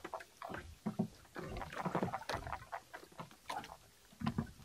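A fishing handline being hauled in by hand over the boat's side: a string of irregular soft clicks, rubs and scrapes.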